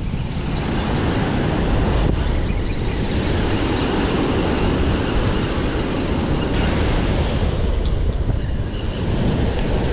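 Surf breaking and washing up a sandy beach, a steady wash of noise, with wind rumbling on the microphone.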